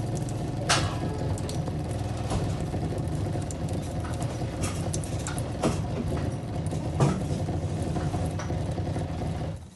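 A noisy filter running: a steady motor hum with irregular clicks and rattling knocks through it, which stops abruptly near the end.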